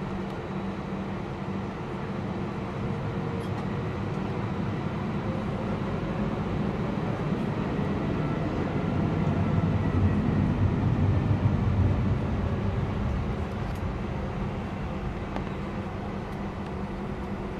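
Airbus A320 jet engine heard from inside the cabin at taxi power: a steady hum over a low rumble, swelling for a few seconds midway and easing again.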